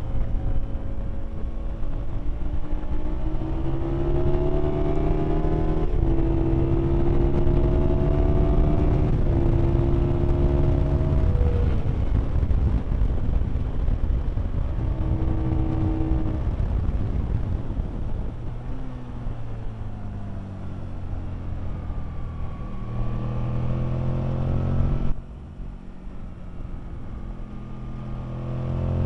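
Aprilia Tuono's V-twin engine heard on board at speed with wind rushing past, its pitch climbing and then dropping with each upshift as it accelerates hard through the gears. Midway it backs off and the pitch falls, then it builds again; about 25 s in the sound drops suddenly as the throttle closes, before rising again near the end.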